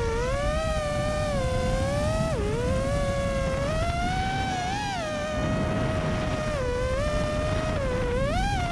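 FPV freestyle drone's brushless motors and props whining, the pitch swooping up and down with the throttle and dropping sharply several times, over a low rumbling rush.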